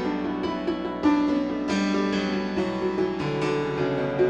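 Slow instrumental melody of single ringing notes, each sustaining and overlapping the next, a new note roughly every half second to second.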